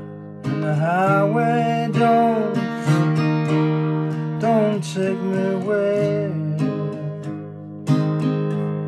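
Acoustic guitar with a capo, played in steady chords. From about half a second in to about six seconds, a melody that slides between notes sits on top of the guitar.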